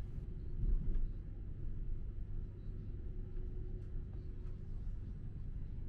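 Passenger train in motion, heard from inside the carriage: a steady low running rumble with a faint steady hum under it.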